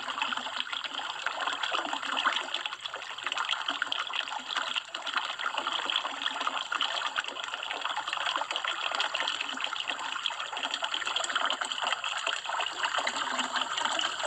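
Shallow stream water trickling over stones, a steady running-water sound.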